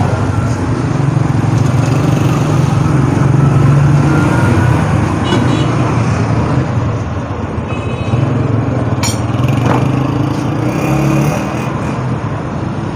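Motor vehicle engine running steadily amid street traffic, with a few brief higher-pitched tones.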